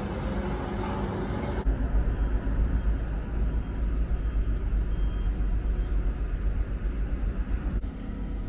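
Harbour ambience at a ferry pier at night: a steady low rumble with a faint machinery hum, changing abruptly twice as the recording cuts from one shot to the next.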